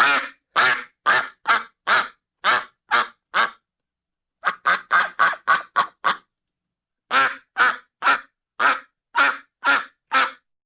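A duck quacking in three runs: about eight evenly spaced quacks, a short pause, six quicker ones, another pause, then seven more. The gaps between the quacks are dead silent.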